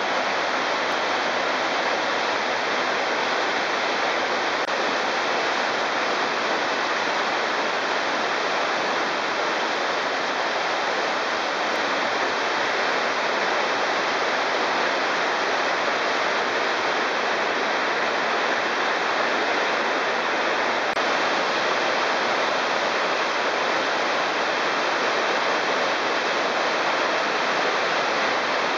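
Steady rushing of a canyon stream and small waterfalls, an even, unbroken wash of water noise.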